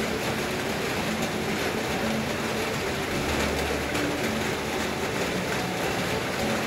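Heavy rain falling steadily in a dense, even hiss.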